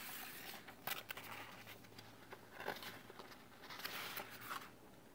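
Faint rustling of paper sheets being handled and leafed through, in short irregular bursts with a few light clicks.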